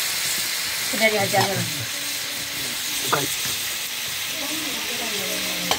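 Chicken pieces frying in oil in a kadai: a steady sizzle with a couple of sharp pops.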